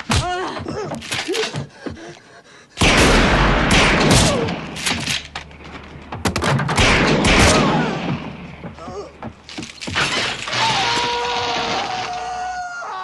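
Movie action-scene soundtrack: a few sharp clicks, then about three seconds in, a long run of loud crashing and shattering with many sharp impacts, easing off after several seconds into held tones near the end.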